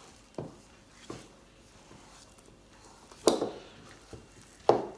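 Metal utensil knocking and scraping against a plastic mixing bowl while stirring stiff glutinous rice flour dough: four short knocks, the loudest a little past the middle.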